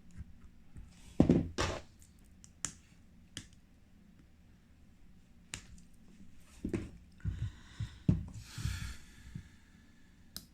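Hand tools clicking, tapping and knocking against a cracked phone back glass as it is pried off, with two louder knocks about a second in and a short scrape in the second half.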